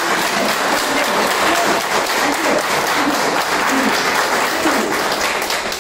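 A room full of people applauding, a dense run of clapping with a few voices calling out over it; the applause dies away near the end.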